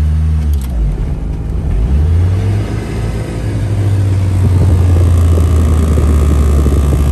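1991 Saturn SL1's 1.9-litre four-cylinder engine revved from idle, heard from inside the cabin. The revs rise, sag briefly, then climb again about two seconds in and are held steady at around 3,000 rpm.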